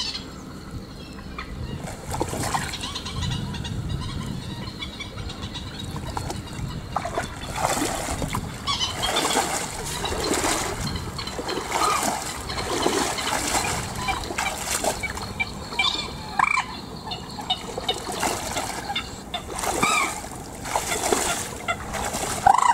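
Rubber boots wading and splashing through a flooded rice paddy, step after step, with short bird calls repeated over the splashing.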